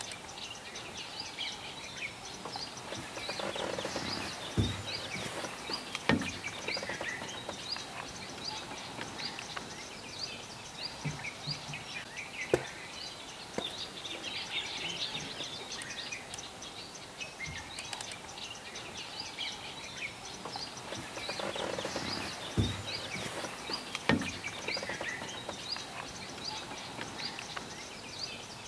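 Small birds chirping and calling over a steady background hiss, with a few sharp clicks now and then.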